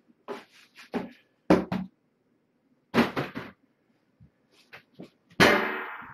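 Cat litter box being scooped: a scoop scraping and sifting through the litter in a run of short, irregular scrapes and rattles, the loudest and longest near the end.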